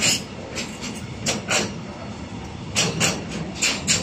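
Wheels of a slowly passing container freight train clacking over the rails: sharp clacks, mostly in close pairs, about four pairs in four seconds, over a low rolling rumble.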